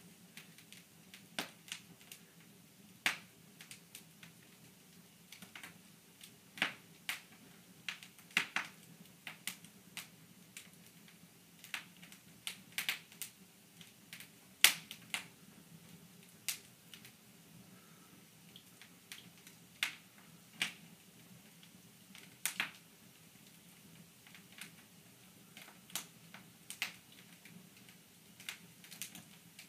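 Wood fire in an open fireplace crackling, with irregular sharp pops and snaps, the loudest about halfway through.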